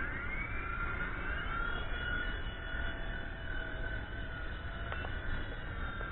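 A WLtoys V911-series micro RC helicopter's electric motor and rotor whining. The pitch rises over the first second as it spools up, then holds a steady high whine.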